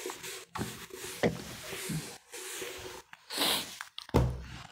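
Whiteboard being wiped clean with a duster in several short rubbing strokes, with a thump just after four seconds in.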